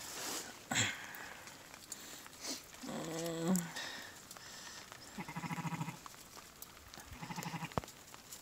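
Sheep bleating: a drawn-out call about three seconds in, then two shorter quavering bleats a couple of seconds apart. A sharp knock comes just under a second in.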